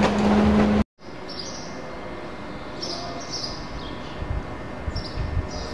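Loud station noise with a steady hum cuts off under a second in, giving way to quieter platform ambience in which small birds chirp, short high chirps in small clusters.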